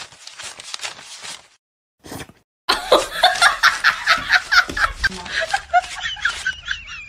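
Banknotes flicked through by hand, a quick even run of papery flicks, which stops about a second and a half in. After a short silence comes a louder burst of laughter, ending in a wavering high tone.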